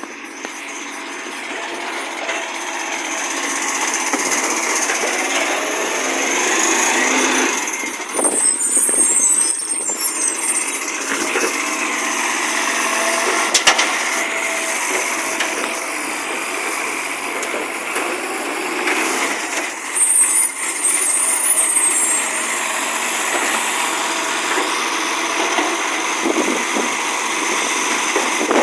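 Recycling garbage truck's diesel engine running, growing louder over the first few seconds, with short air-brake hisses about 8 and 20 seconds in and a single sharp knock midway through.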